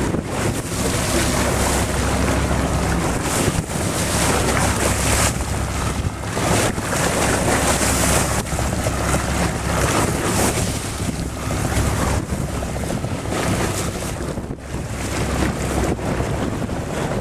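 Wind buffeting the microphone aboard a boat: a loud rushing noise that swells and dips in gusts, over a low rumble.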